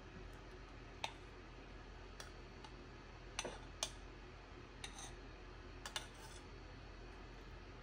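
Knife blade clicking against a small glass bowl as a block of butter is cut into small pieces: about seven light, sharp clicks at uneven intervals over a faint steady hum.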